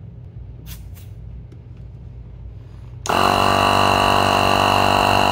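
A few light clicks, then about three seconds in an air compressor switches on abruptly and runs with a loud, steady buzz, pumping air through a chuck clipped onto a riding-mower tyre's valve stem.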